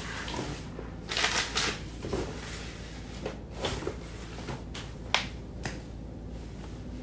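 Rustling and light clicking of small objects being handled: a rustling burst about a second in, scattered light clicks, and one sharp click about five seconds in, over a steady low hum.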